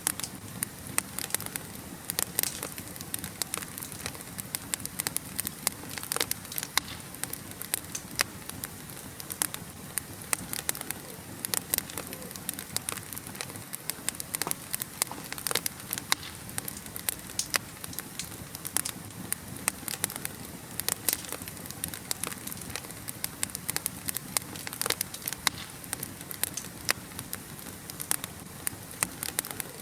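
Wood fire burning in a fireplace: a steady low hiss of flames with many sharp, irregular crackles and pops from the burning logs.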